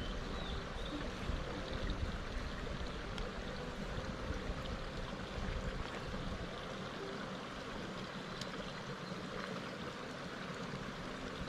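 Mountain stream water running steadily over rocks, with a low rumble in the first half that eases about six seconds in.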